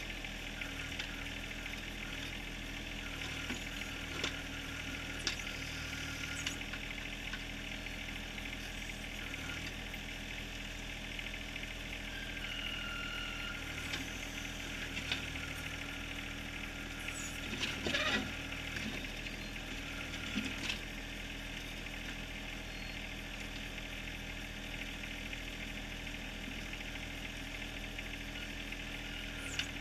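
John Deere 1023R compact tractor's three-cylinder diesel running steadily while the backhoe digs. Occasional sharp knocks and scrapes come as the bucket works gravel and rock, with a louder cluster of them just past halfway.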